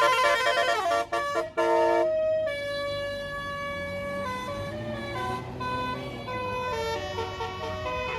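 Bus basuri musical air horn playing a melody: quick, loud stepping notes with two short breaks in the first two seconds, then longer held notes over the low rumble of the bus engine.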